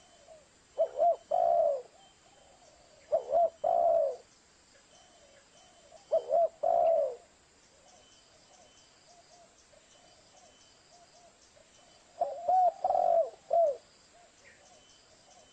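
Spotted dove (tekukur) cooing: four phrases, each a couple of short notes followed by a longer, falling coo, with the longest phrase near the end. Softer coos sound in the gaps between phrases.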